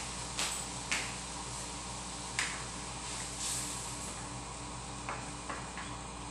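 Cooking spoon knocking and clicking against a steel wok as simmering chicken is stirred: a few sharp single taps, then a quick run of light clicks about five seconds in, over a steady hiss.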